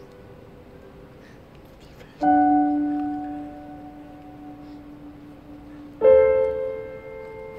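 Solo piano playing slow, sparse chords: the tail of a previous chord dies away, then two new chords are struck about four seconds apart, each left to ring and fade.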